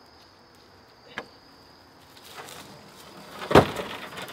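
A heavy roll of metal wire mesh hardware cloth being thrown: rattling and rustling of the wire, then one loud heavy thud as it lands about three and a half seconds in, with the mesh rustling after. Insects trill steadily in the background.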